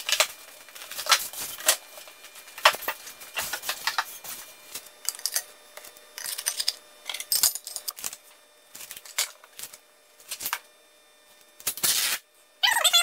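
Scattered clicks, knocks and clatter from sheets of solid-surface countertop material and a circular saw being handled on a workbench. Near the end comes a loud, brief ripping rush as masking tape is pulled off the roll. The saw is not running.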